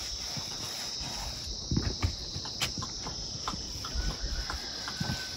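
Steady high chirring of crickets, with a few soft taps and rubs as wet clay is smeared by hand onto a mud wall.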